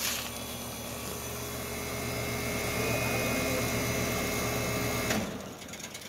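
1994 Bryant 661BJ two-ton heat pump outdoor unit running in heat mode, its Tecumseh reciprocating compressor and fan making a steady hum. About five seconds in it shuts off with a clunk, and the sound dies away over the next second.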